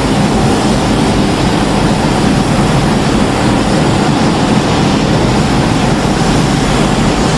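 Custom atomic-breath sound effect for a giant kaiju: a loud, continuous rushing blast of noise that holds steady without a break.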